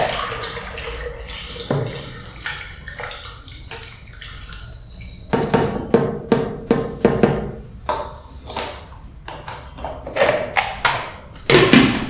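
Kitchen sounds: water running with a thin high ring for a few seconds, then a run of knocks and clatters of utensils and dishes.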